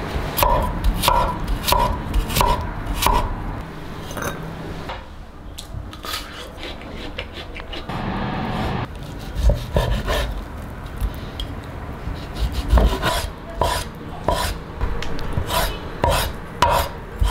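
Chinese cleaver chopping food on a wooden chopping board, repeated knocks about one and a half a second, with a quieter stretch in the middle and quicker chopping near the end.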